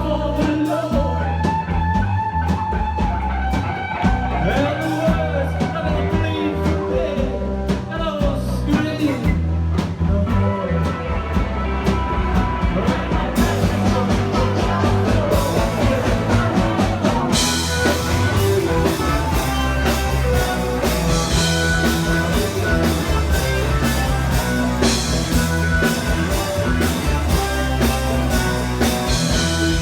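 Rock music with guitar and bass, growing fuller about halfway through as drums and cymbals come in.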